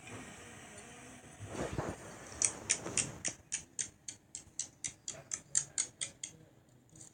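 Slime being worked by hand, a short squishing swell followed by a steady run of about sixteen sharp clicking pops, roughly four a second, stopping about six seconds in.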